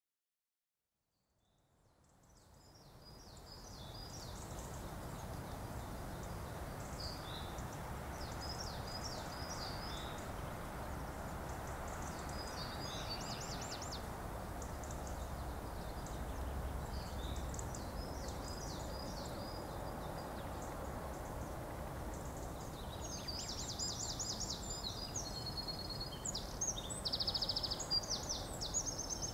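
Outdoor ambience fading in over the first few seconds: a steady hush with many small birds chirping and trilling high above it, busiest and loudest near the end.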